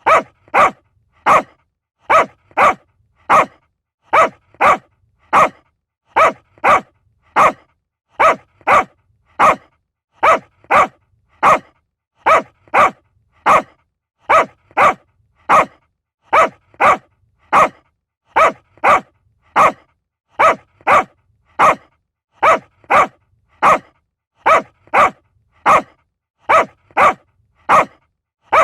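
A small dog barking: short, sharp, high barks coming in quick runs of two or three, repeating at a steady pace with brief silences between.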